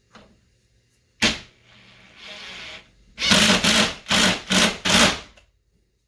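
A sharp knock, then a power drill driving a 1 5/8" deck screw through a caster plate into the hardwood with a T25 star bit, run in four short trigger bursts.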